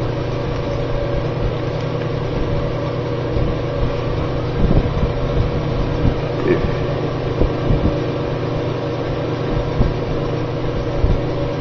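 Antique Victor Electric table fan running at speed: a steady motor hum with the rush of the blades, and a few faint knocks.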